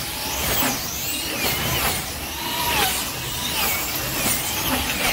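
Wing slot cars racing on a banked multi-lane track: the whine of their electric motors rises and falls as a pack of cars sweeps past, about once a second, over a steady rushing noise.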